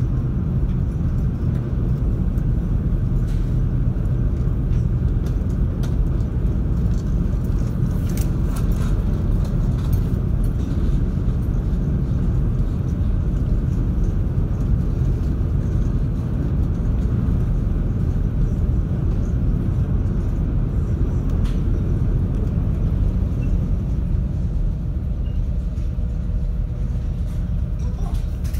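Steady low rumble of a car ferry's engines, heard aboard while it crosses.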